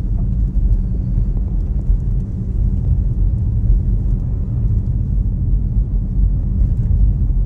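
Jeep Grand Cherokee with a Hemi V8 driving through deep snow: a steady low rumble of engine and tyres.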